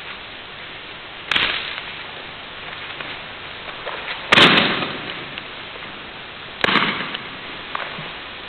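Three sharp slaps of bodies and arms hitting the floor mats as partners are thrown and break their falls, the middle one loudest.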